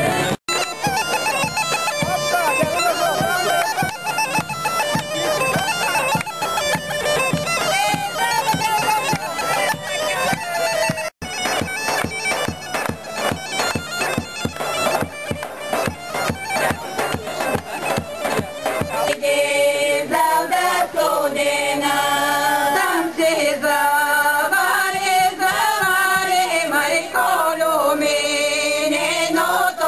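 Bulgarian bagpipe (gaida) playing a fast folk dance tune, with a steady beat under it from about a third of the way in. About two-thirds of the way through it gives way to a group of women singing a folk song in harmony.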